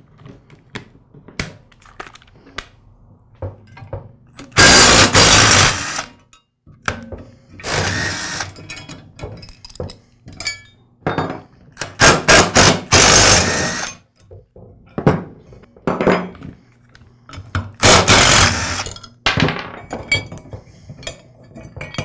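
Cordless DeWalt impact driver hammering in about five bursts, each up to a second and a half long, as it loosens the nuts on the bolts that hold the tiller tines to the tine holder. Small clicks come between the bursts.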